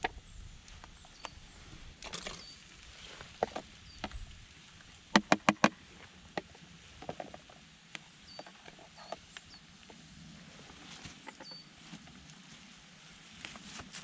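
Sliced potatoes being tipped from a plastic box into a frying pan on a campfire grill: scattered light clatters, with four quick sharp knocks in about half a second, about five seconds in.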